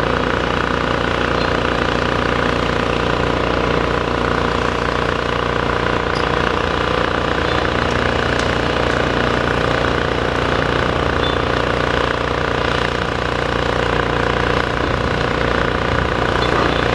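Demolition excavator's diesel engine running steadily, with no big crashes or impacts and only a couple of faint ticks in the middle.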